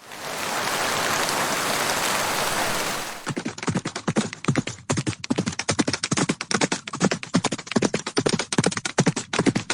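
A steady hiss for about three seconds, cutting off abruptly; then horse hooves clattering in a fast, uneven run of knocks on hard ground, several a second.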